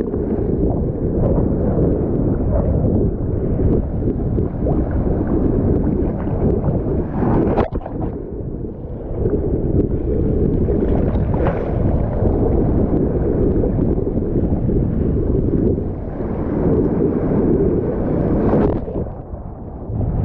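Wind buffeting the microphone, a loud low rumble that eases briefly about eight seconds in and again near the end.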